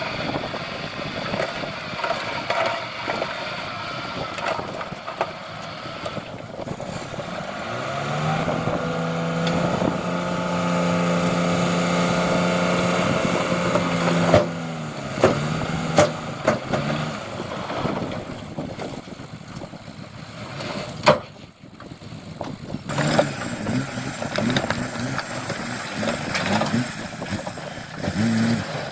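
Heavy earthmoving machine's diesel engine running, revving up and holding a steady higher pitch for several seconds in the middle before dropping back. A few sharp metallic knocks and clanks follow.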